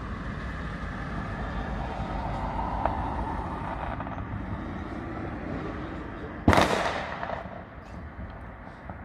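A single loud firework bang about two-thirds of the way in, with a short fading tail, over a steady background rumble.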